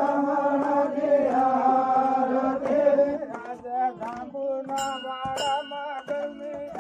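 Voices chanting a Vagadi devotional bhajan in long held, slightly wavering notes. About halfway through the melody breaks into shorter stepped notes and gets quieter.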